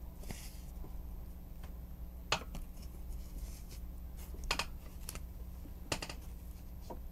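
Hands handling a foam-rubber sheet and craft tools on a newspaper-covered table: a brief rustle near the start, then a few sharp clicks and taps, over a steady low hum.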